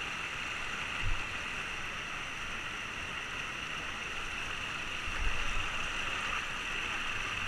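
Mountain stream rushing over rocks: a steady hiss of running water. Two low thumps, one about a second in and a longer one around five seconds in.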